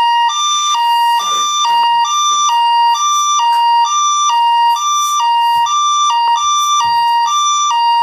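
Electronic two-tone hi-lo emergency siren of a toy emergency vehicle, alternating steadily between a higher and a lower note about twice a second, with a buzzy electronic tone.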